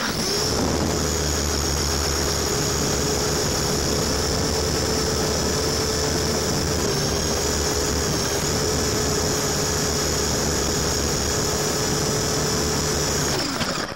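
Electric motors and twin rotors of a small coaxial RC helicopter running: a steady whine and buzz that spins up at the start and winds down near the end.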